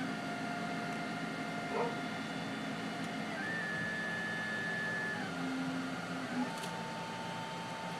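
XYZ da Vinci 3D printer running a print. Its motors whine as the print head and bed move, and the pitch jumps to a new steady tone every second or two as each move changes speed. A couple of faint clicks come about two and six seconds in.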